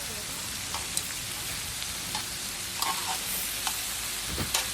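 Meat sizzling on a grill, a steady hiss with a few sharp pops and ticks.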